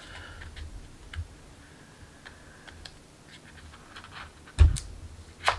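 Light clicks and crinkles of hands and a hobby knife working a vinyl wrap piece and its backing onto a rifle's top rail, with a loud knock about four and a half seconds in and a sharp click near the end.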